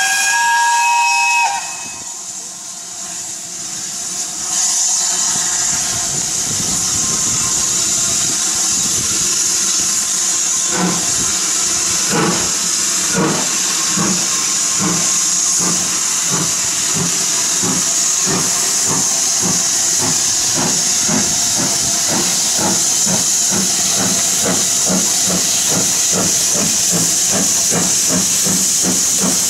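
A steam whistle sounds briefly, then BR Standard 7 Pacific No. 70000 'Britannia' starts away with steam hissing. Its exhaust beats begin about ten seconds in, slow at first and quickening to about three a second.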